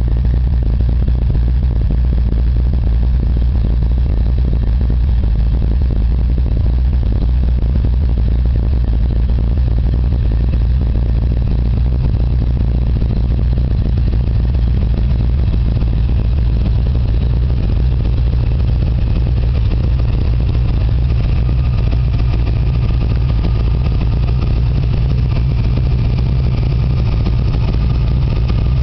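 1984 Ford Mustang's 351 Windsor (5.8 L) V8 engine idling steadily, with a deep, even rumble.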